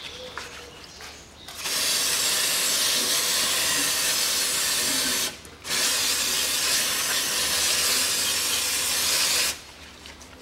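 Aerosol spray can hissing through a red extension straw in two long sprays of about four seconds each, with a brief pause between them.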